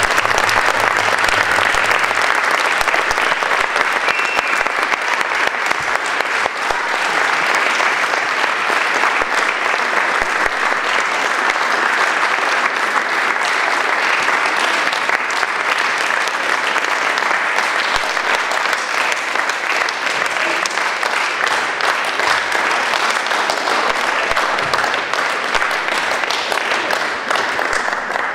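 Audience applauding: dense, sustained clapping that tapers slightly near the end.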